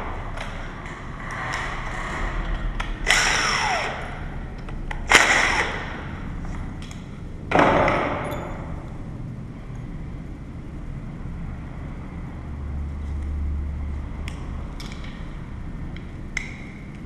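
Metal lock parts and hand tools being handled and knocked during a lever lock fit-out: three loud metallic clanks with a short ring in the first half, then lighter clicks and taps.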